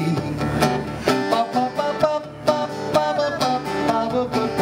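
Live acoustic country band playing an instrumental break between verses: picked guitar notes in a steady rhythm over a bass line.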